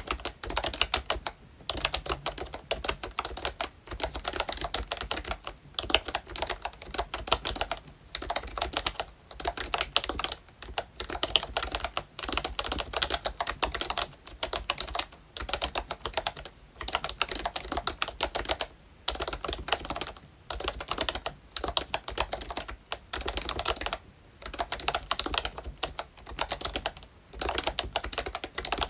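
Continuous typing on a ROYCHE Disney Mickey Mouse retro membrane keyboard with round typewriter-style keycaps: dense runs of rapid key clicks, broken by short pauses every couple of seconds.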